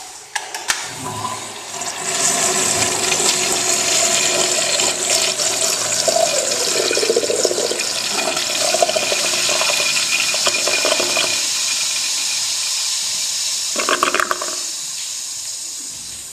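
A 1969–1983 American Standard urinal flushing: water rushes into the bowl from about two seconds in and runs steadily, with a brief louder surge near the end before the flow dies away.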